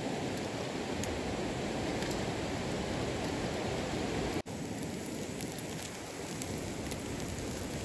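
Wood campfire burning with a few faint crackles over a steady rushing noise. The sound drops out for an instant about four and a half seconds in.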